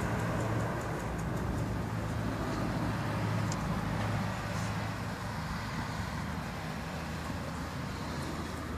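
Steady low hum and rumble of motor traffic, easing slightly about halfway through.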